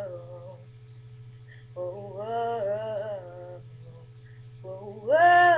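A young woman's voice singing wordless, drawn-out phrases of a melody: one about two seconds in and a louder one starting near the end. A steady low electrical hum runs underneath.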